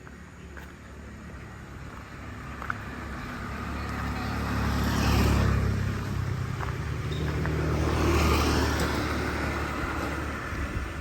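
Motor vehicles passing on a street: a steady engine hum with tyre noise that swells twice, about five and eight seconds in, before the engine sound drops away near the end.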